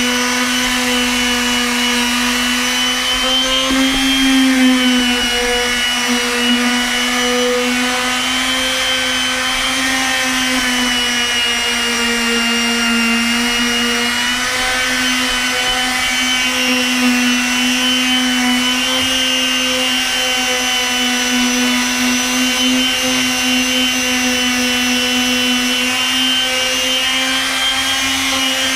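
Makita random orbit palm sander running continuously on weathered deck boards, a steady motor hum whose pitch wavers slightly up and down.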